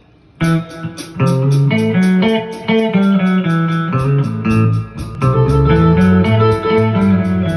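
Instrumental intro of a blues-country song: guitar and bass over a steady beat, coming in about half a second in after a brief silence.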